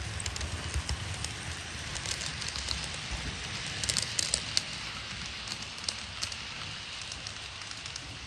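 HO-scale model freight train, an electric locomotive hauling tank wagons, rolling over the layout's track: a steady hiss of wheels and motor with a run of sharp clicks over rail joints and points, thickest around the middle.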